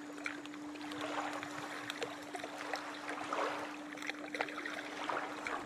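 River water splashing and gurgling in irregular small spatters, with a steady low hum held underneath.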